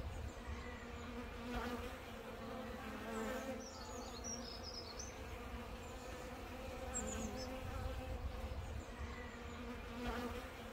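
Honeybees buzzing around a sugar-water feeder jar: a steady low wingbeat hum that swells briefly now and then as bees fly close.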